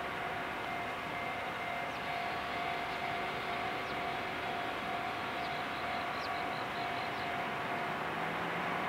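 Distant DD51 diesel-hydraulic locomotive running while it stands during shunting: a steady drone with a constant whine-like tone. Faint short high chirps come now and then, and a lower hum comes in near the end.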